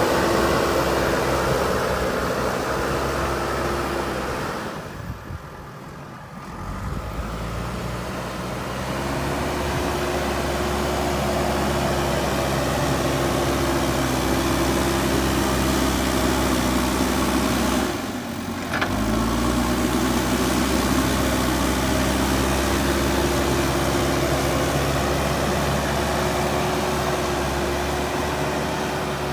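JCB 3DX backhoe loader's diesel engine running steadily. It drops away briefly about five seconds in and again around eighteen seconds, then comes back with a rising pitch as the engine revs up.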